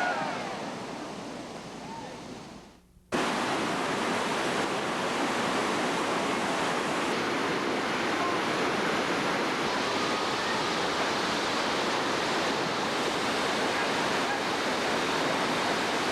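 Steady rushing of a Class 5 whitewater rapid. It starts abruptly about three seconds in, after an earlier sound fades out into a brief gap.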